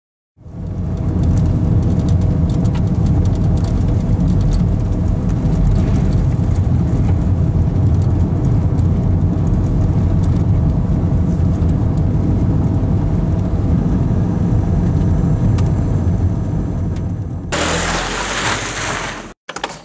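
Steady low rumble of a car driving, engine and road noise heard from inside the car. About seventeen seconds in it changes to a brighter hiss, and the sound cuts off suddenly near the end.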